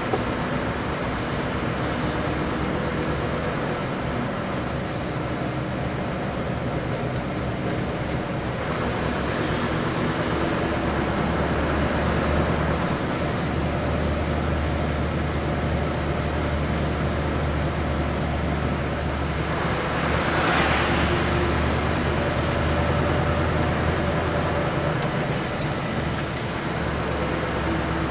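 Car interior driving noise: a steady engine hum and tyre noise on a wet road, with a brief louder whoosh about twenty seconds in.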